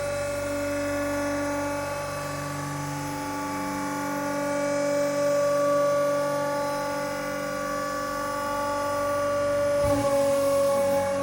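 Background music of sustained, held chords that change every few seconds.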